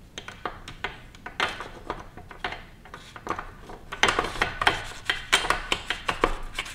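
Honda Grom camshaft clicking and scraping against the cylinder head and cam bearing as it is wiggled into place by hand. The irregular metal taps come thicker in the last few seconds.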